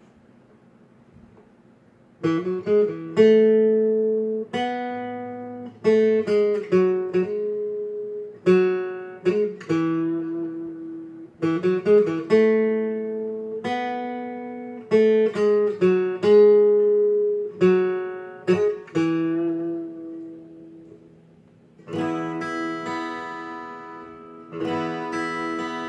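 Steel-string acoustic guitar fingerpicked solo: after about two seconds of near silence, single notes and chords are plucked and left to ring out and fade, and near the end a denser, steadier picking pattern sets in.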